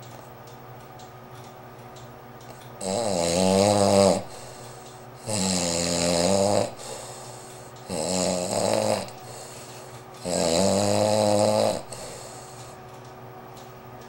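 A sleeping man snoring loudly: four long snores, each a little over a second, coming about every two and a half seconds.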